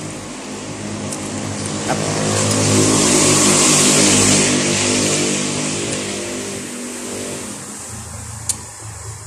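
A motor vehicle passes by: its engine grows louder to a peak about three to four seconds in, then fades away. A sharp click near the end.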